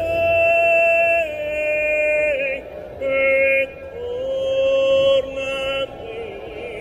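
A male gondolier singing in an operatic Italian style, holding long notes of a second or more and sliding between them, with vibrato coming in near the end.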